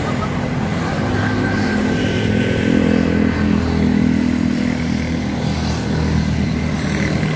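A motor vehicle engine running steadily, its pitch wavering slightly and growing a little louder about three to four seconds in.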